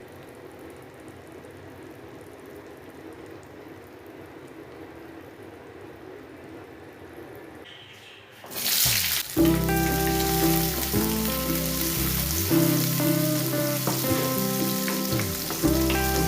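Food frying in a pan, with a soft steady sizzle that suddenly turns into a loud sizzle a little past halfway. Background music with a melody comes in just after and plays over the continuing sizzle.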